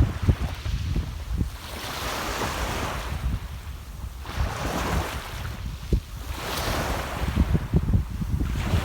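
Small sea waves washing onto the shore, a hissing wash swelling and fading about every two seconds, with wind buffeting the microphone as a low rumble.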